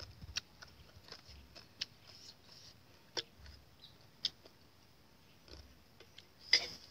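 Scattered small clicks and taps of tableware being handled at a meal, with one louder short knock near the end.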